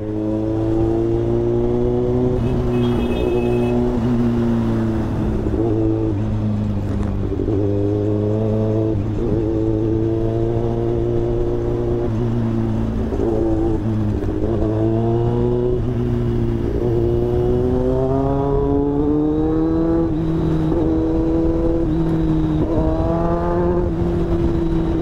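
Kawasaki ZX-10R inline-four engine under way, heard from the rider's seat. It pulls up through the revs and drops back at each gear change or throttle lift, about six or seven times over.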